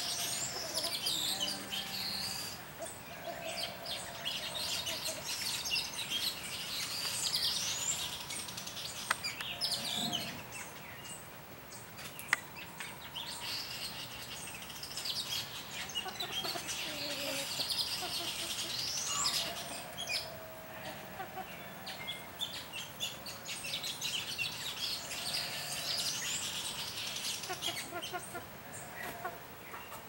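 A flock of village weavers chattering and chirping nonstop, a dense mix of quick notes and rising sweeps, with domestic hens clucking lower down now and then. Two sharp clicks sound near the middle.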